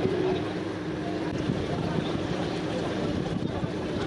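A steady engine-like hum with wind on the microphone.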